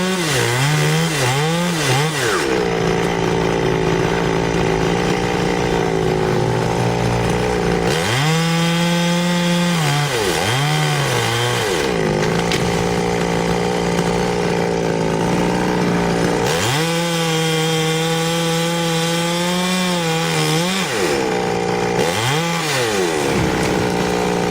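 Two-stroke chainsaw cutting fir at high revs. The throttle is let off and opened again several times, and the pitch dips and climbs back each time.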